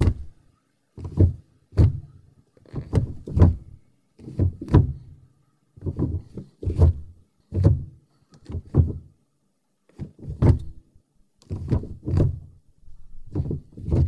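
Gear selector of a 2002 Mercury Sable being moved repeatedly through its positions: a run of clunks and clicks, about one a second, with a short pause about nine seconds in.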